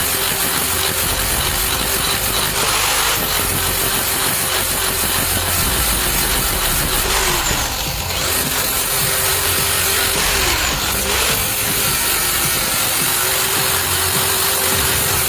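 An electric power tool's motor running steadily with a high hiss, its pitch sagging briefly a few times.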